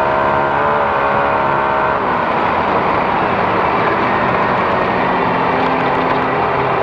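Off-road race car's engine running hard at steady revs, heard from inside the car. About two seconds in, the steady engine note breaks up into a rougher, noisier rumble as the car runs over rough ground.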